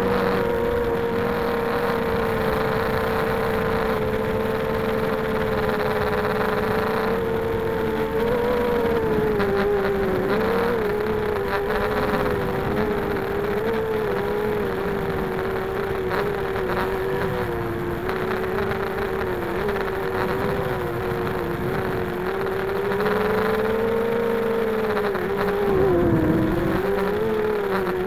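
Whine of a 250-size FPV quadcopter's four RCX H1806 2400kv brushless motors spinning Gemfan 5x3 props, heard from the onboard camera over rushing air. The pitch wavers up and down with throttle changes and drops sharply and swoops back up near the end.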